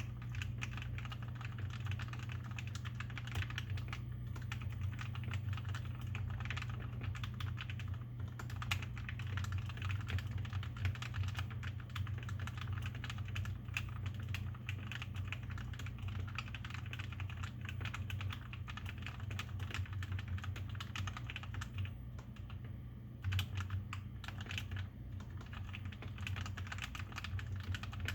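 Continuous typing on a Tecware Phantom 87-key mechanical keyboard with lubed stock Outemu Red linear switches and clipped, lubed, band-aid-modded stabilizers. Under it runs a steady low hum.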